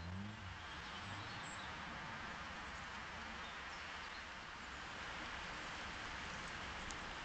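Steady outdoor background hiss, with no distinct bird calls standing out.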